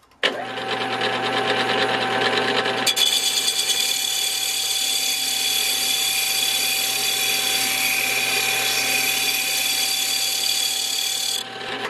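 Small HQ400 lathe-mill-drill starting up and running steadily at 500 RPM with a rusty Triumph motorcycle rear brake drum in the chuck. About three seconds in, a high hissing scrape joins the motor hum as the boring tool takes a light cut of 3 thousandths per side on the drum's pitted braking surface; the scrape stops near the end.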